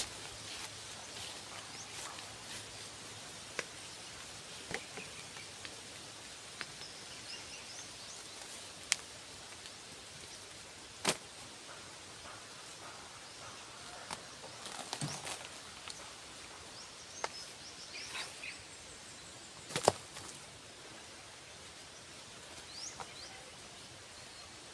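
Scattered sharp knocks and clatters of bamboo offcuts being picked up and tossed onto a pile, a few seconds apart, over steady outdoor background noise with faint high chirps.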